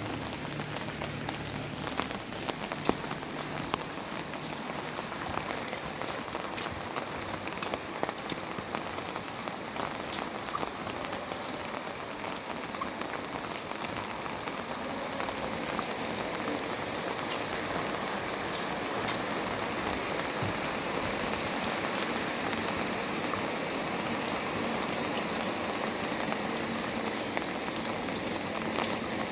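Steady heavy rain falling, a continuous hiss dotted with many sharp ticks of drops striking close by.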